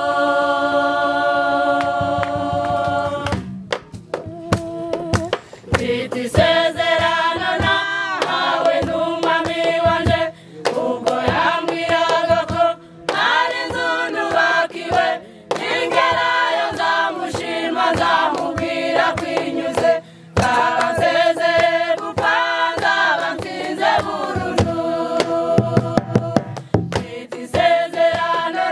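A women's choir singing together unaccompanied, opening on a long held chord, then moving into short phrases with brief breaths between them.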